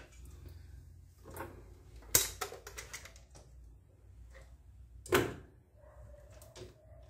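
Metal clunks and knocks as the stainless steel bowl of an electric grain grinder is seated and its lid is closed and clamped down. The two loudest clanks come about two and five seconds in, with lighter knocks between.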